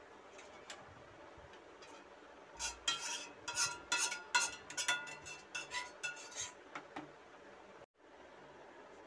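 Clinks and scrapes of metal against a cooking pot as the ice-cream mixture is poured out of it. It is a quick, irregular run of sharp ringing clinks that starts about two and a half seconds in and lasts about four seconds.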